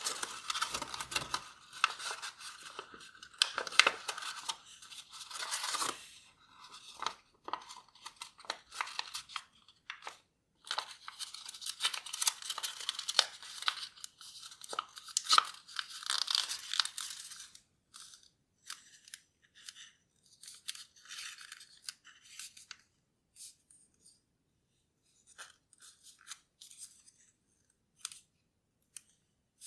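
A sheet of 15 cm origami paper being folded and creased by hand: crinkling and rustling as the paper is collapsed and pressed flat. The crinkling is dense for the first six seconds and again from about eleven to seventeen seconds, then thins to light scattered rustles and taps.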